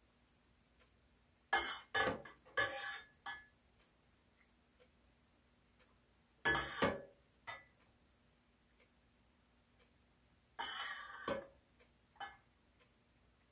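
Wall clock ticking faintly about once a second. Three short, louder bursts of handling noise at the workbench break in near the start, the middle and the end.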